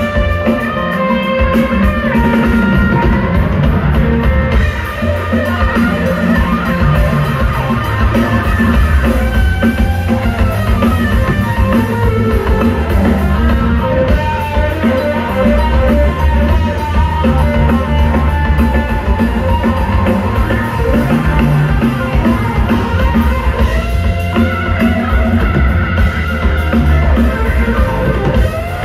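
Rock band playing live: electric guitar over drum kit and bass in an instrumental passage, with no singing.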